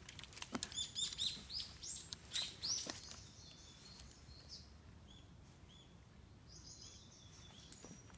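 Small bird calling with short, high arched chirps, many in quick succession over the first three seconds, then fainter and sparser. Footsteps knock on the wooden plank boardwalk in the first few seconds.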